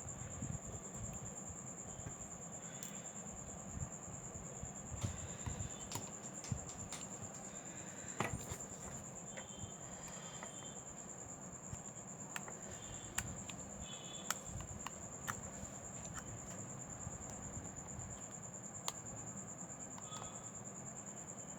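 A steady high-pitched whine, with scattered light clicks and taps of small tools on phone parts.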